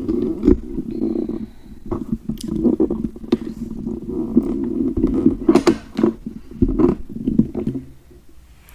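Close-miked stomach gurgling: a continuous low, wet rumble with small crackles and clicks, which stops about eight seconds in.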